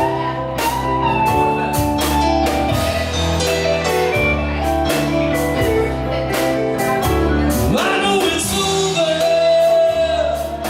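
Live blues band playing between sung lines: a guitar lead with bent notes over bass and a steady drum beat.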